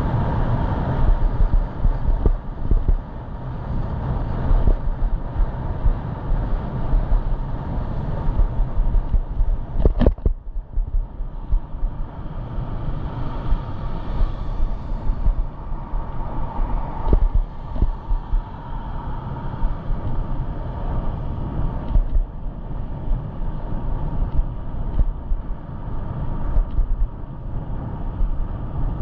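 Wind buffeting a head-mounted GoPro's microphone while riding an e-bike, over the steady rumble of tyres rolling on the road. Two sharp knocks stand out, about ten and seventeen seconds in.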